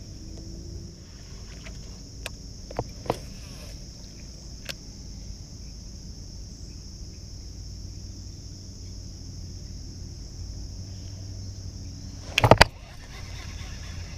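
On a fishing boat: a steady insect drone and a low hum, broken by a few light clicks in the first five seconds and a loud clatter of knocks about twelve seconds in.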